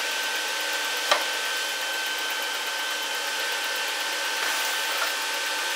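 Steady whirring fan noise with a constant high whine, and one sharp metallic click about a second in as a hashboard is pushed home in a metal miner chassis.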